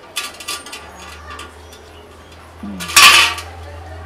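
Metal kitchen utensils and dishes clinking and knocking, several light clinks early and one loud clatter about three seconds in.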